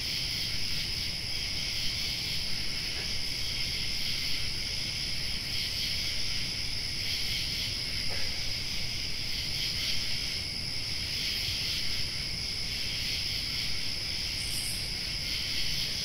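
Steady, high-pitched chorus of night insects, unbroken throughout.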